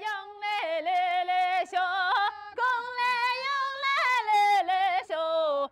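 A woman singing a folk-style song in Chinese, a single voice with long held notes, vibrato and glides between pitches, with no instruments heard.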